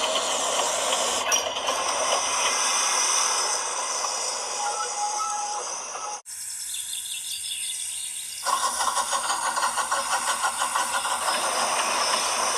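Model trains running on layouts: the rattle of a model trolley rolling along its track. After a cut, a fast, evenly repeating clatter of a large-scale model train's wheels over the rails begins about eight seconds in.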